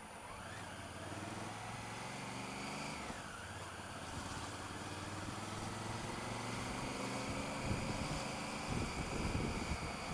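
Honda Africa Twin CRF1000L's parallel-twin engine running at low revs in slow traffic, its pitch rising gently over several seconds as the bike pulls away. Wind rumble on the microphone picks up near the end.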